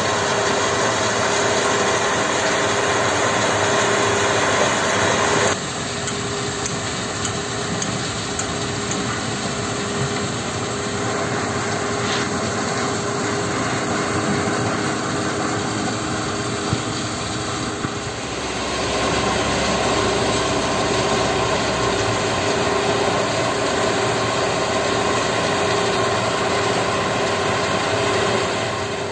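A mobile stone-crusher plant and a diesel excavator running together, a steady mechanical din with a constant hum through it. The sound drops abruptly about five seconds in and grows louder again after about eighteen seconds.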